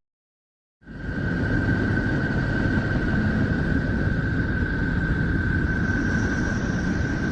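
Spacecraft-recorded electromagnetic signals from Neptune converted into sound: a steady low rushing noise with a constant high tone held above it. It starts about a second in, after a brief silence.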